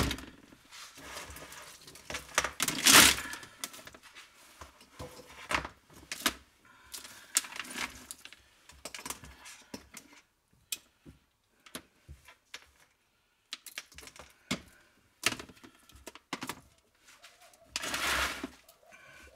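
Handfuls of loose scrap electrical cables tossed into a plastic crate, rustling and clattering with many short irregular knocks and clicks. Near the end, a longer louder rush of rustling and scraping as the full crate is lifted.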